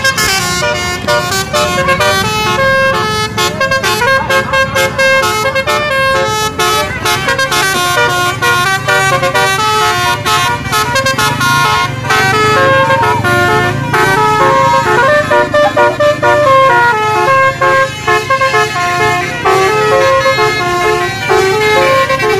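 Bus basuri telolet horn playing a tune: a long, unbroken run of quickly changing horn notes, loud throughout, over a low rumble.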